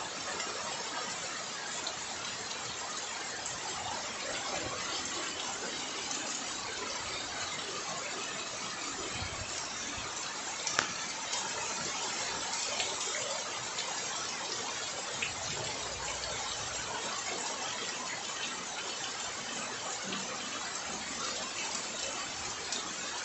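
Floodwater rushing fast along a street and over the kerb in heavy rain: a steady, even rush of water, with one brief click about halfway through.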